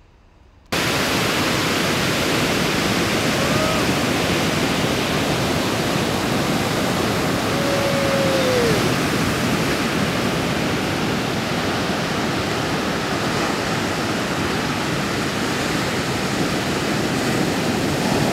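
Ocean surf breaking close by: a loud, steady wash of noise that starts abruptly under a second in.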